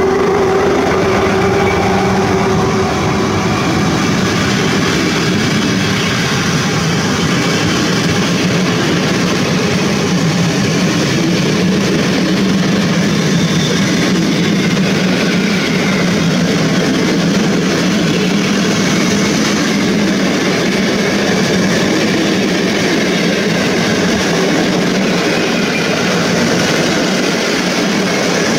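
A long train of passenger coaches rolling past close by on the near track, a continuous loud rumble and clatter of wheels on rails with a steady low hum underneath.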